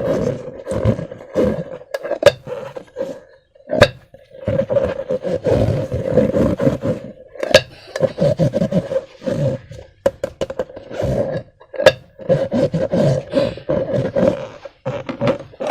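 Slime being squeezed and worked by hand: a continuous wet, fluttering squelch, broken by a few sharp pops.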